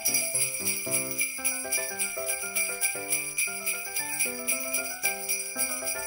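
Upbeat background music: sleigh bells jingling in a steady rhythm over a simple tune of pitched notes.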